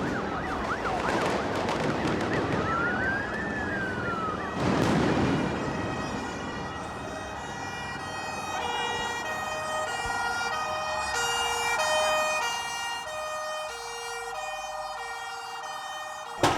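A siren wailing up and down over noisy street sound, followed by a steady tone with notes stepping between pitches. It ends in a sudden loud bang.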